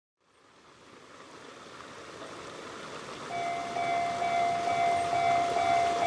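Japanese railway level crossing's electronic warning bell starting up about three seconds in and dinging steadily about twice a second, the signal that a train is approaching. Before it there is only a faint, steady outdoor hiss that fades in.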